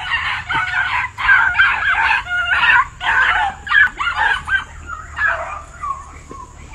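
A pack of small hound dogs yelping and baying together in an excited, overlapping chorus as they chase a rabbit, the calls thinning out near the end.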